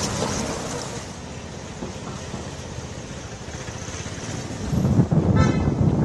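Street traffic noise that swells into a loud low rumble about five seconds in, with a short vehicle horn toot just after.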